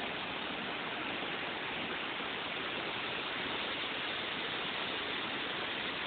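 Waterfall rushing steadily, water falling into its pool.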